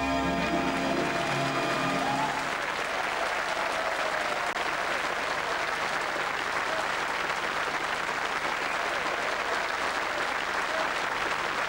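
Studio audience applauding, with the act's backing music ending about two seconds in and leaving the clapping on its own.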